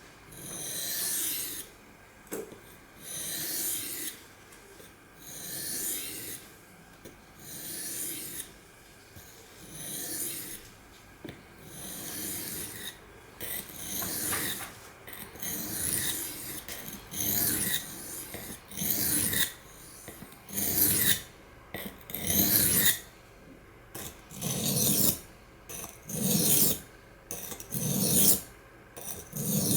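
Steel knife blade, a CPM S30V Spyderco Paramilitary II, being stroked back and forth on a sharpening stone, each pass a rasping scrape. The strokes come about every two seconds at first, then quicken to about one a second and grow louder toward the end.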